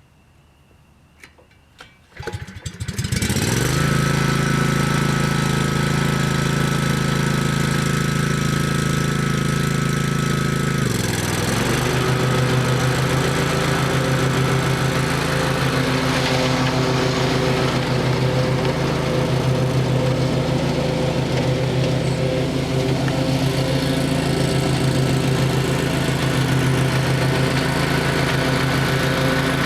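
Kawasaki FH430V 15 hp V-twin engine on an Exmark Viking zero-turn mower cranking over and starting about two seconds in, then running steadily. About eleven seconds in its speed dips briefly and recovers.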